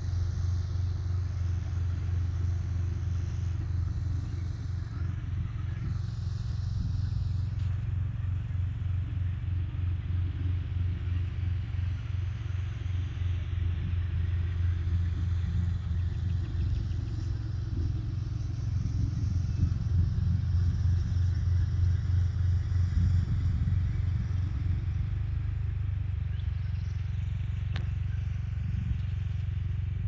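Wind buffeting the phone's microphone: a steady low rumble that flutters in strength.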